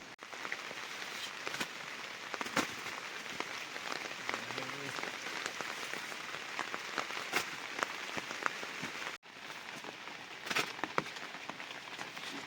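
Heavy rain falling steadily, with scattered sharper taps of individual drops landing close by. The sound cuts out for an instant about nine seconds in.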